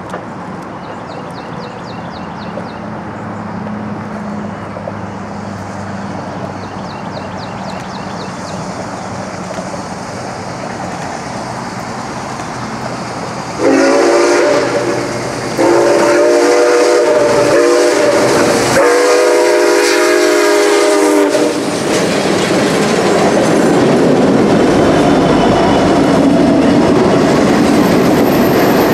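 Canadian Pacific 2816, an H1b Hudson 4-6-4 steam locomotive, approaching with a steadily rising rumble, then its chime whistle sounding four blasts about halfway through, the last the longest. The rumble and clatter of the locomotive and passenger train passing close by follow, louder.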